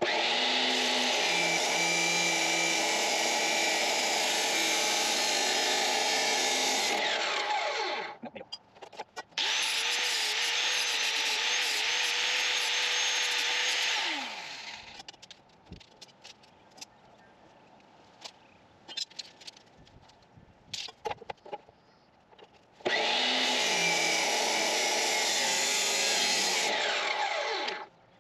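A power saw cutting square steel tubing, run three times for several seconds each, with a falling whine as the motor winds down after each cut. Between the cuts, metal clinks and knocks as the tubing is handled.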